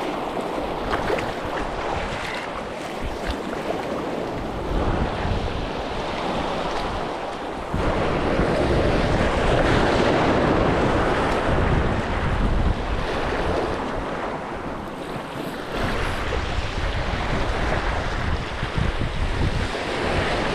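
Wash of small waves with wind buffeting the microphone; the low wind rumble comes and goes in gusts, heaviest in the middle of the stretch.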